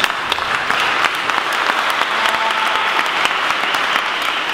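A crowd of guests applauding steadily, many hands clapping at once in a large church.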